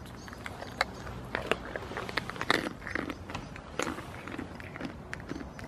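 Goat taking a treat from a gloved hand and chewing it: a run of sharp, irregular crunching clicks, busiest from about one to four seconds in.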